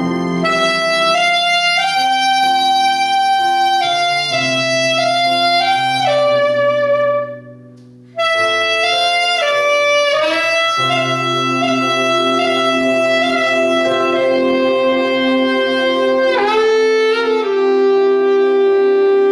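Saxophone playing a gospel melody in sustained, held notes over a recorded backing track. The music drops away briefly about seven seconds in and comes back abruptly, and the saxophone ends on one long held note.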